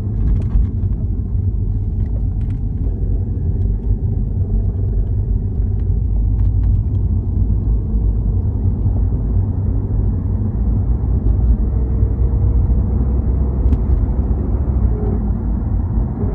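Audi A4 1.8T's turbocharged four-cylinder engine under way with a heavy low rumble and a faint whirring tone that rises gently in pitch in the second half. This is the whirring the owner hears on acceleration above 1200 rpm.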